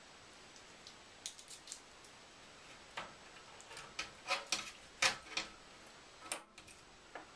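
Small metallic clicks and scrapes of a Swiss Army knife working at over-tightened screws on a metal computer case, coming in irregular clusters, loudest in the middle.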